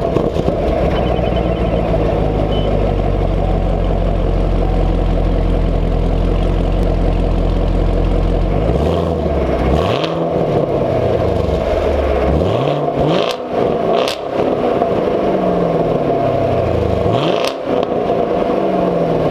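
2018 Camaro SS 1LE's 6.2-litre V8 through its stock headers and NPP exhaust, idling steadily just after starting. About nine seconds in it is revved several times, each rev rising and falling back.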